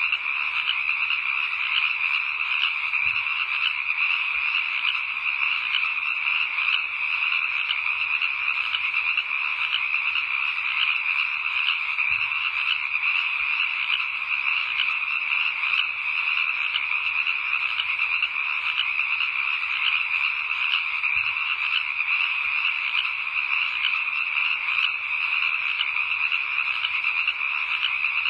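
A steady, dense chorus of frogs calling, unbroken throughout.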